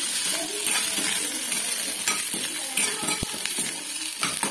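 Cut okra sizzling in hot oil in a stainless steel kadai while a steel spoon stirs it, scraping repeatedly against the pan.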